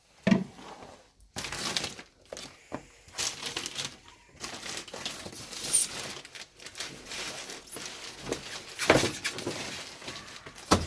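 Packaging being cut and pulled off a boxed tumble dryer: irregular crinkling and rustling of wrapping, with a few sharp knocks.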